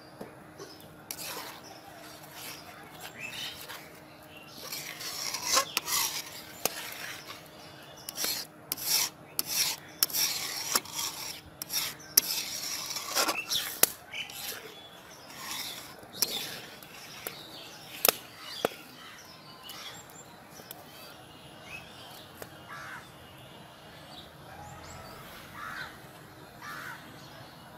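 Metal spatula stirring and scraping around a metal kadai of thick, milky palm-fruit pudding, in irregular strokes with a few sharp clinks against the pan. The scraping is busiest in the middle and dies down to faint sounds for the last several seconds.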